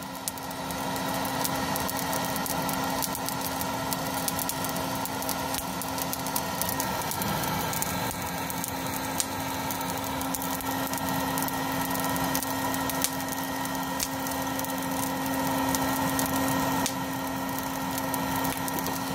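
HomeRight Electro Torch, an electric charcoal starter, running steadily with a constant motor-and-fan hum as it blows hot air into lump charcoal. Scattered short crackles and pops come from the burning coals.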